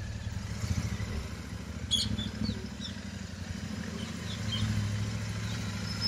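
Royal Enfield Interceptor 650's parallel-twin engine running at low speed as the bike is ridden slowly, its loose drive chain just tightened.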